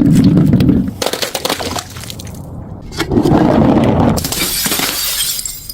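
Glass bottles breaking and shattering, with shards clinking and crunching. There is a loud burst at the start and another about three seconds in.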